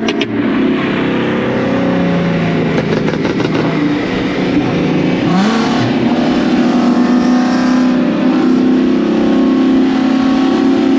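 Car engines at full throttle in a street roll race, a loud continuous engine note with a climb in pitch about five seconds in.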